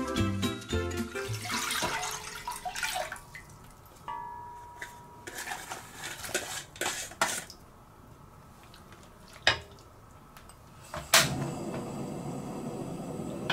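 Food handling in the kitchen: sliced vegetables dropped into a metal pot with a few knocks. Near the end an Iwatani portable cassette gas stove's igniter clicks sharply, and the burner lights with a steady gas hiss.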